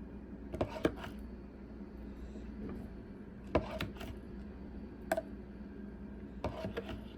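A spoon clicking and scraping against the rim of a small potion bottle while slime with beads is spooned in: four short clusters of clicks, over a steady low hum.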